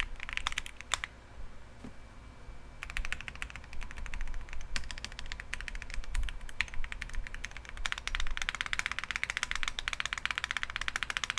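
Typing on a mechanical keyboard fitted with Akko Rosewood switches, which have a nylon housing and nylon stem and bottom out on the stem rails. Rapid keystrokes pause briefly about a second in, then resume and grow into a fast flurry near the end.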